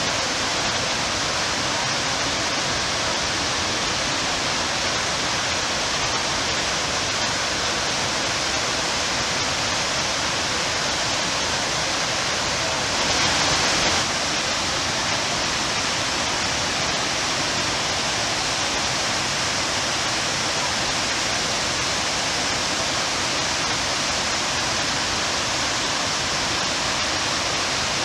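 Waterfall: a steady, even rush of falling water. It swells slightly for about a second near the middle.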